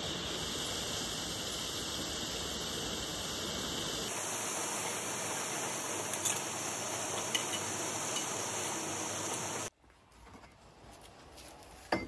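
Hot freshly cast metal bar sizzling on a block of ice: a steady hiss of melting ice and steam, with a few sharp crackles. The hiss cuts off abruptly near the end, and a single knock follows.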